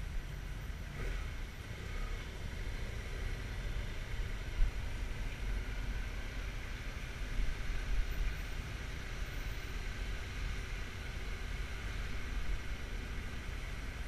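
Motorcycle riding along, a steady low rumble of engine and road noise mixed with wind rushing over the mounted camera's microphone.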